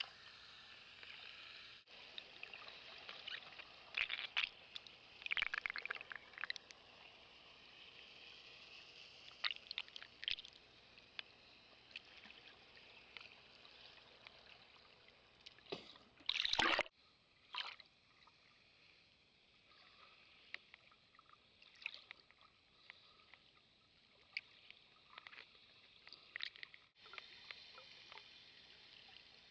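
Underwater sound picked up by a camera in seawater: a faint steady hiss with scattered clicks and crackles, and one brief loud burst of water noise about halfway through.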